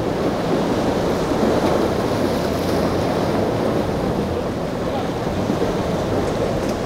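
Rough inlet water and surf churning and washing against rocks, with wind buffeting the microphone and a low steady hum of outboard and jet-ski engines underneath.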